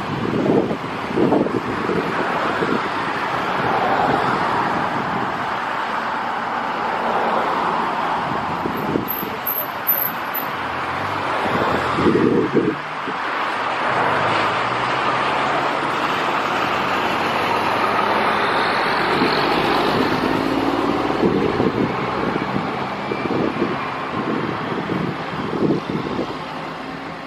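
Steady engine roar with a few gusts of wind on the microphone; the roar eases off near the end.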